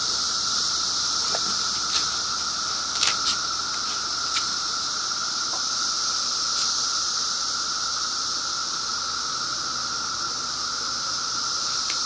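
Steady, high-pitched drone of cicadas singing, with a few faint clicks in the first half.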